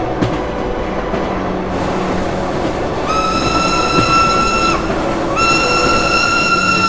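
Train whistle sounding two long steady blasts, the second starting about half a second after the first ends, over the rushing noise of a running train.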